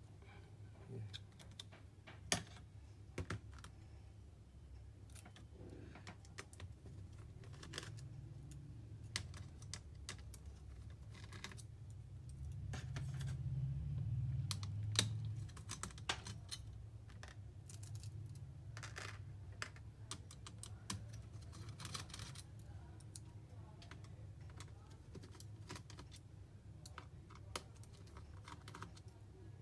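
Irregular small clicks and taps of plastic and metal as an HP EliteBook 840 G3 is taken apart by hand: parts, a spudger and screws knocking against the laptop's chassis. A low rumble of handling swells up around the middle.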